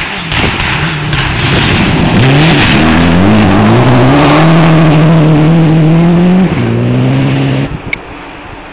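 Rally car approaching and passing flat out on a gravel stage: the engine note climbs and is held high while the tyres throw up gravel, drops once with a gear change, then cuts off suddenly near the end.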